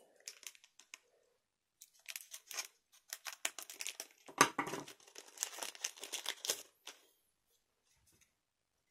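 Foil trading-card booster pack crinkling and crackling as it is cut open with scissors and the cards are pulled out: a run of short rustles, the sharpest one about four and a half seconds in.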